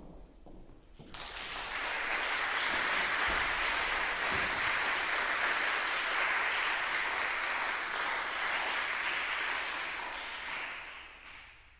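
Audience applauding, starting suddenly about a second in, holding steady, then fading out near the end.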